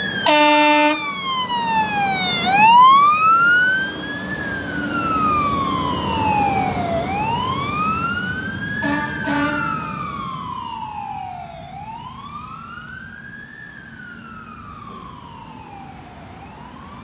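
Fire engine's electronic siren wailing, slowly rising and falling, with one air-horn blast about half a second in and two short blasts around nine seconds in. The siren fades as the engine drives away.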